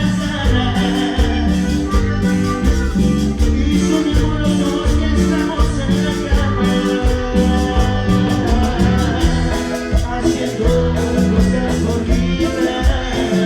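A live band playing Latin American dance music with a steady beat: a pulsing bass line, held melody notes and quick, even percussion ticks.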